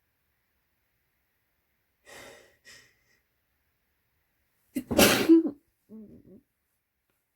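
A person sneezing once, loudly, about five seconds in, after two short breathy intakes of breath. A brief voiced sound follows the sneeze.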